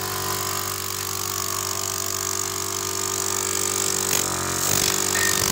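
12-volt mobile air compressor pumping into a 16-litre tank, its motor running smoothly with a steady hum and hiss; the pitch wavers briefly about four seconds in.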